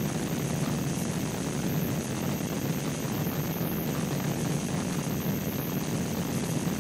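Harsh noise music: a steady, dense wall of distorted noise, heaviest down in a low rumble, with a thin high whine held over it.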